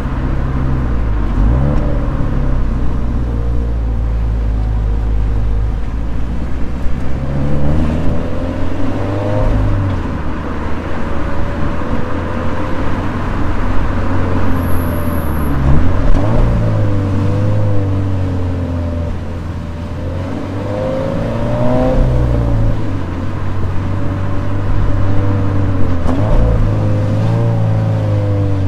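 Toyota 86's 2.0-litre flat-four engine under way, its revs rising and falling several times.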